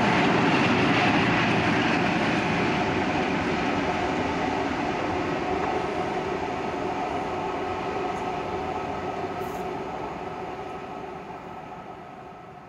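Diesel-hauled passenger train, a Class 47 and a Class 57 locomotive top-and-tailing a rake of coaches, running away at speed: the rumble of wheels, coaches and diesel engine fades steadily as it recedes.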